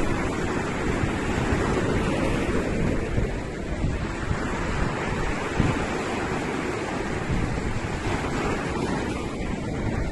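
Ocean waves surging and breaking in strong wind, with wind buffeting the microphone: a steady, heavy rumble.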